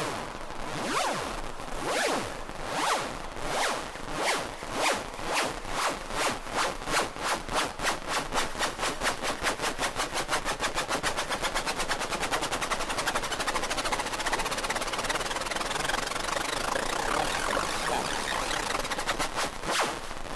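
Hard trance build-up with no bass drum: a roll of noisy drum hits speeds up from about one a second to a fast, dense roll, with sweeping tones near the start and again near the end, leading into the drop.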